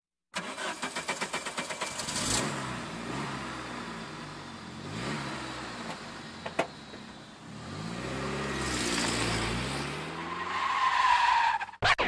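Car engine revving up and down in three long sweeps, with a single sharp click midway and a rising squeal near the end. A hip hop beat cuts in at the very end.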